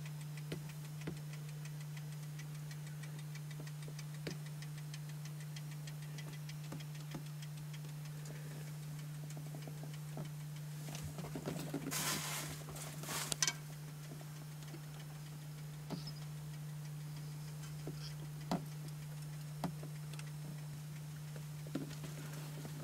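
A steady low hum with faint, scattered clicks, and a brief rustling scrape about halfway through.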